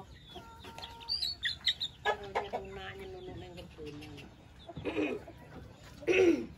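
Backyard chickens clucking and calling, with drawn-out calls in the first half and two short, louder squawks about five and six seconds in, the second the loudest.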